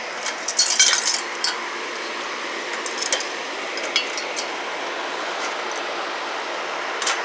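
Light metallic clinks and rattles, a quick cluster about a second in and a few single ones later, as an electrical plug and cord are handled and plugged in. A steady hiss runs underneath, and the compressor is not yet running.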